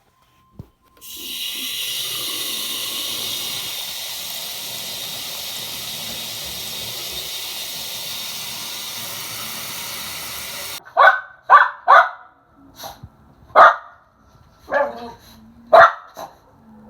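A steady hiss lasting about ten seconds that cuts off abruptly, followed by a dog barking about six times in short separate barks.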